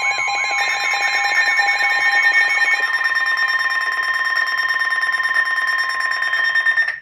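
Emergency Alert System alert tones: several steady electronic tones sounding together with a chirping warble about three times a second. About half a second in, a new higher steady tone comes in, and everything cuts off suddenly near the end.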